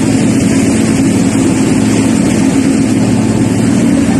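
Engine of an open passenger vehicle, likely a truck, running steadily at an even pitch while driving, heard from the open back where riders stand.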